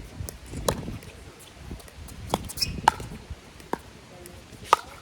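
Pickleball rally: paddles striking the hard plastic ball, about five or six sharp pops at uneven intervals of half a second to a second, with wind noise underneath.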